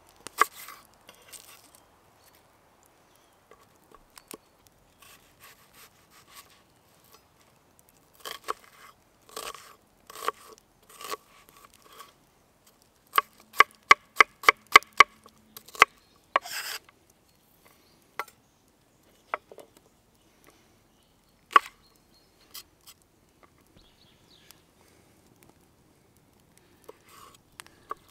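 Chef's knife slicing and dicing an onion on a wooden cutting board: scattered sharp knocks of the blade on the board, with a quick run of about ten chops about halfway through.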